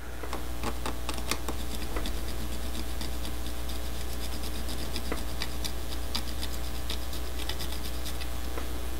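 A wooden stick, then a cotton swab, rubbing lightly on a plastic N scale locomotive shell: a steady run of small scratching ticks as solvent-softened decals are worked off. A steady low hum runs underneath.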